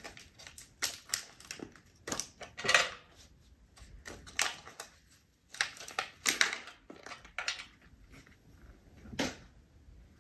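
Thick plastic beef jerky pouch crinkling irregularly as it is handled and the jerky is emptied out of it, loudest about three seconds in.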